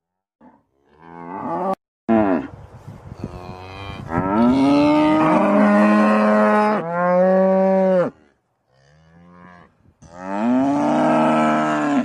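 Cattle mooing: a series of moos, the longest lasting nearly three seconds in the middle and bending in pitch, then a pause before a last moo near the end.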